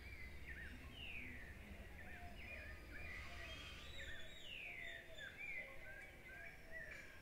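Faint birdsong: several birds chirping, with a few long whistles sliding down in pitch.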